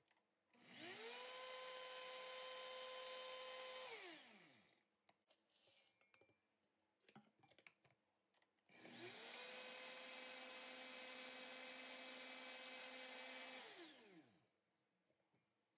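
Oster blender grinding dried eggshells to powder, run twice, about four and six seconds each, heard faintly. Each time the motor spins up to a steady whine and winds down when it is switched off.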